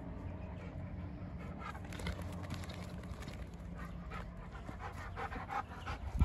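A Doberman panting fast and excitedly while leaping about, giving short whines near the end. It ends in a sharp knock as the dog reaches the phone.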